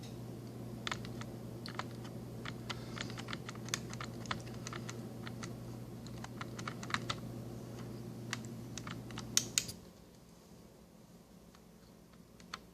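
Air conditioner running with a steady low hum that cuts off abruptly about ten seconds in, as the unit shuts off. A scattered run of light clicks goes on throughout.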